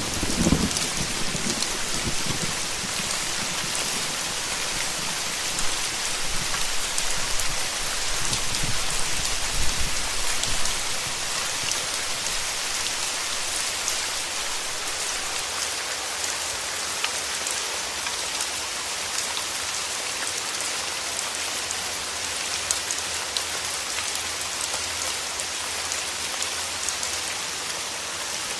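Steady rain falling with a dense hiss, with low rumbles of thunder in the first couple of seconds and again about eight to ten seconds in.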